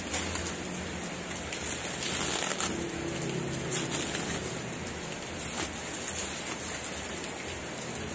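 Clear plastic wrap crinkling and rustling as it is pulled off a new gun chamber, over a steady hiss of rain.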